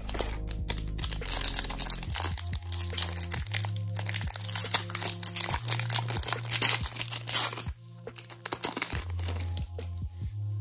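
Foil trading-card pack crinkling and tearing as it is opened by hand, over background music. The crinkling stops about three quarters of the way through.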